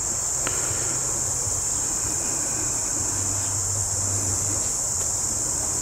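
Steady, high-pitched chorus of insects, with a low hum underneath.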